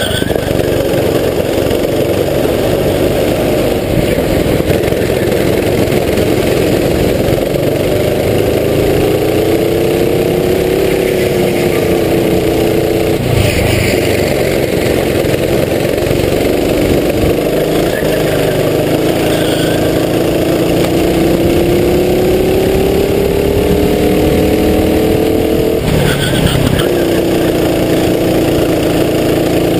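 Racing kart's engine at full race pace, heard onboard. Its pitch climbs and falls as it accelerates out of corners and eases into them, with two sudden drops in pitch, one about halfway through and another near the end.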